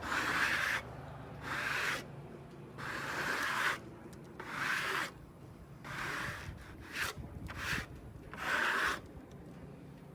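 A run of about seven rubbing strokes across freshly sawn pine, roughly one every second and a half, as sawdust is brushed off the slab's surface.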